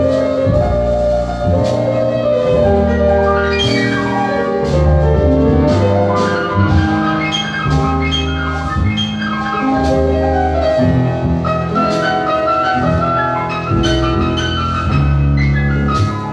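Instrumental outro music with piano and sustained melodic notes, playing steadily.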